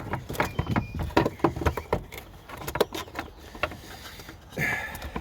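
Hard plastic clicking, knocking and rattling as an engine-bay plastic part is worked loose by hand, with a short squeak a little under a second in and a scrape about four and a half seconds in.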